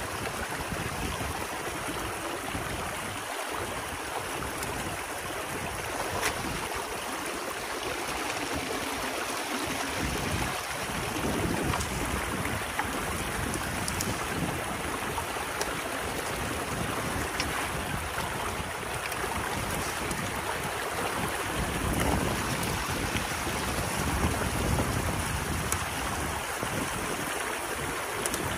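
Water rushing and gurgling steadily through a breach in a beaver dam, with a few sharp clicks and splashes as the sticks of the dam are worked by hand.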